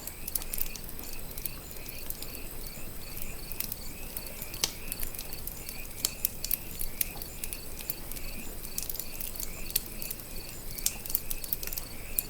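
Crickets chirping in a steady, evenly spaced rhythm, over a campfire crackling with sharp, irregular pops, one louder pop about halfway through.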